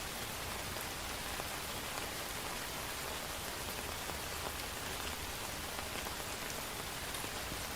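Steady rain falling on hard surfaces, a dense even hiss with scattered sharper drop ticks.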